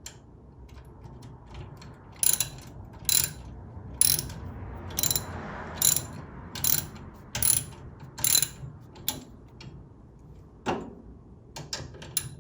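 Hand ratchet wrench clicking in short back-strokes, about one a second, as a lock nut is tightened onto an Allen-head bolt.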